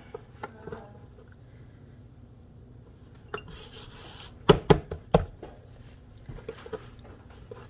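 A hand rubbing flour across a sheet of seitan dough on a wooden board, a brief soft swishing about three and a half seconds in, followed by a quick cluster of four or five sharp knocks.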